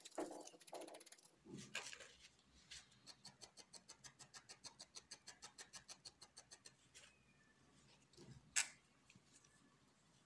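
Faint handling sounds of needle-felting craft work: a few soft rubs and knocks, then a run of small quick ticks at about eight a second for some four seconds, and one sharp click near the end.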